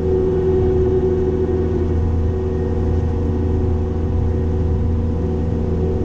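Cat 262D skid steer's diesel engine running steadily while it drives a brush cutter: a continuous low drone with a steady hum above it.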